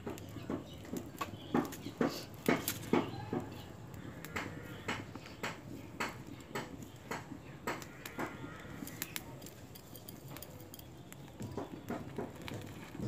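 Irregular light clicks and taps from hands shaping dough over a steel bowl.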